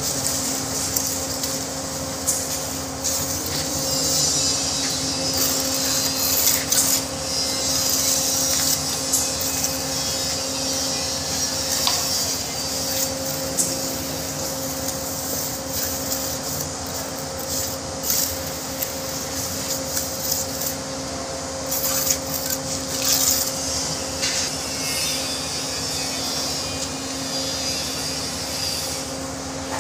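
Steel trowel scraping and spreading cement mortar along the top of a concrete block wall, with a few short knocks, over a steady machine hum.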